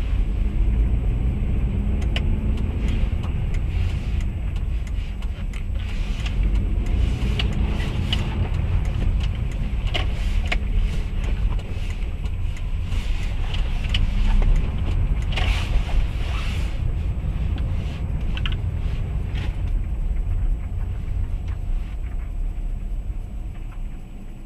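A car driving: a steady low rumble of engine and road noise, with scattered clicks and knocks.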